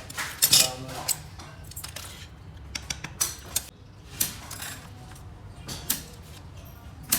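Irregular metallic clinks and knocks of stainless-steel stove parts being handled and worked by hand, over a low steady hum.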